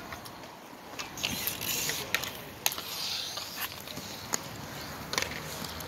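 Roller hockey play: inline skate wheels rolling on the sport court, with scattered sharp clacks of hockey sticks and puck.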